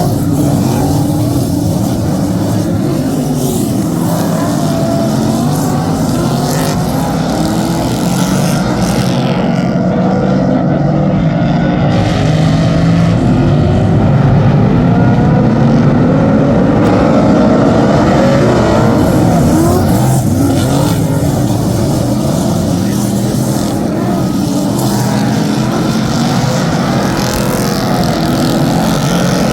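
Several superstock race cars' V8 engines running hard as a pack laps the track. It is a continuous, loud mix of overlapping engine notes, each rising and falling in pitch as the cars accelerate and back off through the turns.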